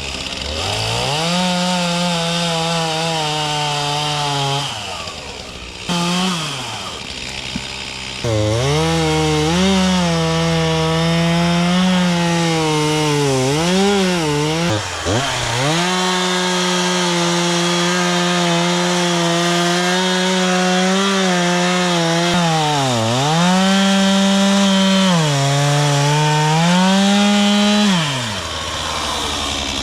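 Two-stroke chainsaw run at high throttle through cedar wood, the engine note sagging and recovering under load. It eases off briefly several times between cuts and drops back toward idle near the end.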